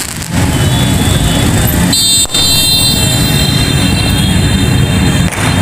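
Motorbike and car engines of a passing street procession, a steady traffic din. A steady high-pitched tone joins about two seconds in.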